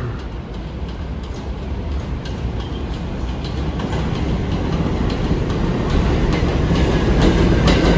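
New York City subway train approaching on an elevated steel track. A low rumble grows steadily louder, and the wheels click over rail joints more and more often toward the end.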